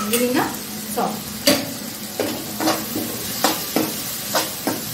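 Small prawns with onions and spices sizzling in hot oil in a metal kadai on high flame, stirred with a metal spoon that scrapes and knocks against the pan about twice a second.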